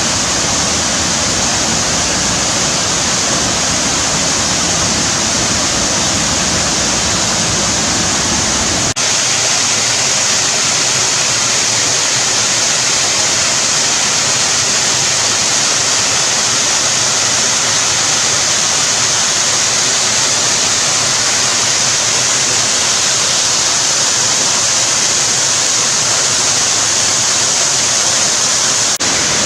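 Waterfall rushing in a steady, loud roar of falling water. About nine seconds in the sound changes abruptly as the deep low rumble drops out, leaving a brighter hiss of water.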